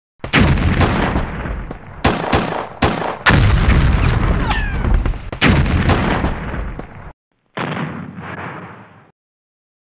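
Battle sound effects: a rapid run of loud gunshots and booms, with falling whines in the middle, that stops sharply about seven seconds in. After a short break comes one more explosion that dies away.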